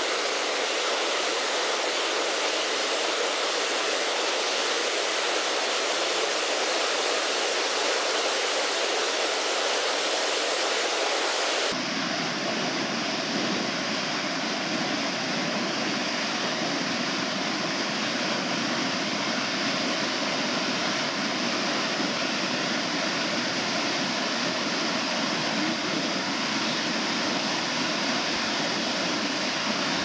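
Steady rushing of a tall mountain waterfall pouring down a rock face. About twelve seconds in, the sound changes abruptly to a deeper, fuller rush.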